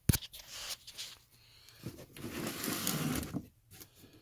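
A sharp knock, then rustling and scraping as boxed die-cast toy cars in cardboard and plastic-window packaging are handled. The scraping is loudest for about a second and a half in the middle.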